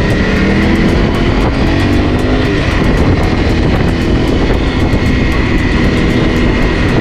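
Honda CRF 250 Rally's single-cylinder engine running steadily under way, heavily mixed with wind rush on the microphone.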